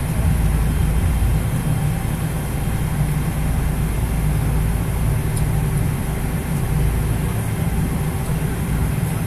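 Cabin noise inside a Boeing 777-300 airliner taxiing, heard from a window seat over the wing: a steady low rumble from the engines with a few faint steady tones above it.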